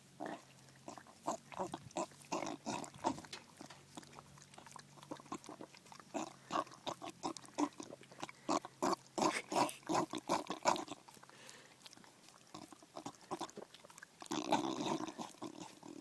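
Bulldog eating an ice cream cone noisily: quick repeated mouth and nose noises, several a second, in runs with short pauses, and a longer rougher sound near the end.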